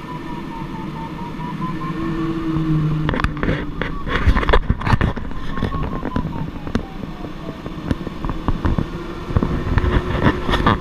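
Airflow rushing over a glider's canopy, with the audio variometer beeping in a pitch that wavers down, up and down again. From about three seconds in, a run of sharp knocks and rattles.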